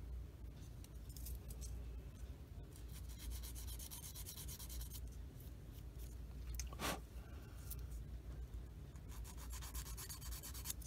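Sanding stick rubbed quickly back and forth along the edge of a small styrene model part, taking off the slight ridge left where the two mold halves met. The fine scratchy strokes come in two runs, with a single light tap about seven seconds in.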